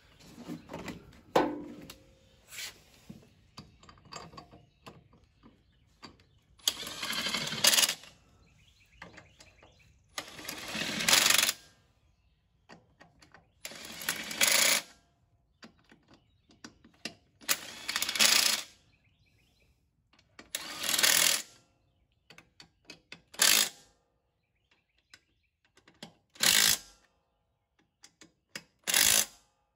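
Ratchet wrench working a wheel nut on a garden tractor's rear wheel: a burst of rapid clicking about a second long with each back-swing, repeated roughly every three seconds, with lighter clicks before the steady strokes begin.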